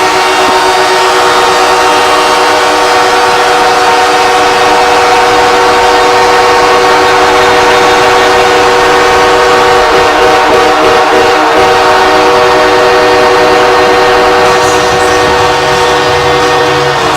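Los Angeles Kings' arena goal horn sounding in one long, unbroken blast of several steady tones at once, celebrating the Kings' Stanley Cup-winning victory. It cuts off at the very end.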